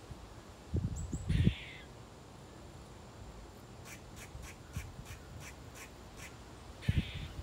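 Gray squirrel alarm calling. A short raspy call comes about a second in and another near the end, with a run of quick sharp chucks, about four a second, between them. Low thumps on the microphone come with the first call and just before the end.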